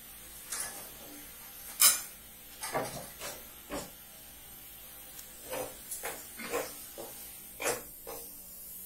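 Scattered light clicks and knocks, the sharpest about two seconds in, from glass spice jars and their steel lids being handled. Underneath is a faint steady hiss of cashews frying in ghee and oil in a clay pot.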